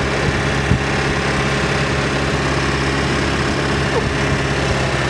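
Steady drone of a tour vehicle's engine with road noise, heard from inside the cabin while driving, with a brief knock under a second in.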